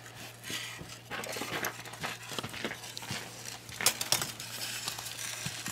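Lumps of homemade wood charcoal being handled, giving scattered light clicks and clinks as pieces knock together, with a sharper pair of clicks about four seconds in.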